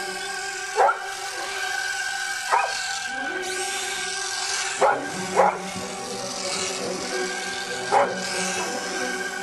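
Bird dog barking: five sharp barks, irregularly spaced a half-second to two and a half seconds apart, over a steady whine of held tones.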